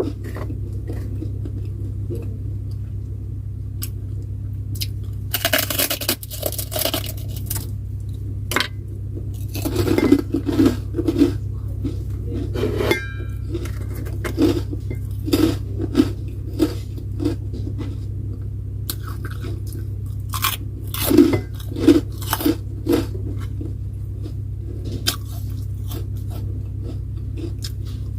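Crisp food being bitten and chewed close to the microphone, in irregular crunches, with occasional clinks of dishes and utensils and a steady low hum underneath.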